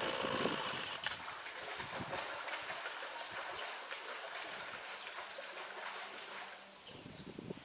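Hokkaido brown bear splashing in a pool as she paws and scratches at her coat in the water to shed winter fur: a continuous patter of splashes, fullest in the first second and easing off toward the end.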